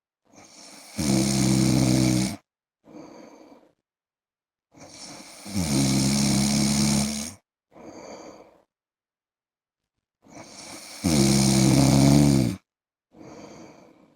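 A man snoring in his sleep, three loud snores about five seconds apart, each followed by a short, softer breath.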